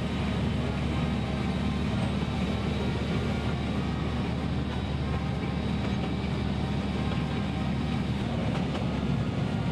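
Steady running noise of the narrow-gauge Artouste tourist train, heard from inside its open carriage: a continuous low rumble of the train on the track.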